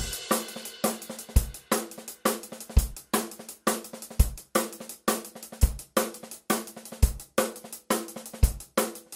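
Intro music with a drum-kit beat: sharp snare and cymbal hits about twice a second, with a deep bass drum about every second and a half.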